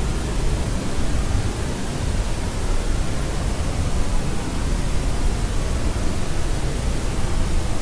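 Steady, even noise from a white-noise sleep track, weighted toward the low end like pink noise.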